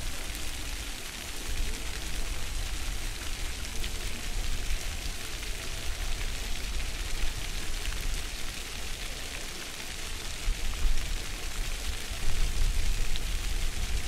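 Floor-fountain water jets splashing down onto wet stone paving: a steady hiss of falling water, like rain. A low rumble under it swells near the end.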